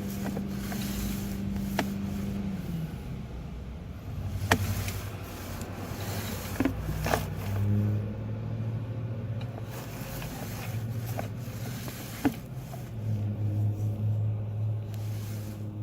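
Steady low machine hum whose pitch steps down and up a few times, with scattered sharp clicks and knocks.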